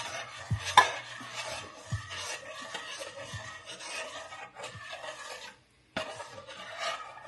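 A metal utensil stirring and scraping in a stainless steel saucepan of mac and cheese sauce, with scattered clinks and a sharp knock about a second in. The sound drops out briefly a little before the end.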